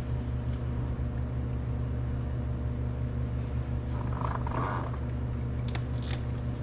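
Steady low mechanical hum, with a brief scrape about four seconds in and two light clicks near the end.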